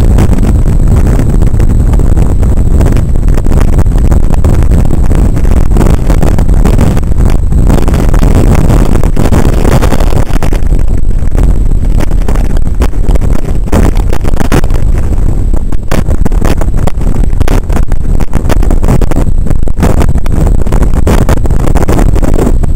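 Strong storm wind buffeting the camera's microphone: a loud, continuous low rumble broken by frequent sharp crackles as gusts hit.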